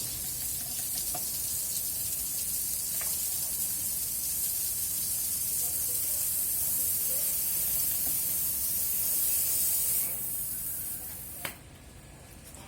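A steady high hiss of spraying that cuts out about ten seconds in, followed by a single sharp click.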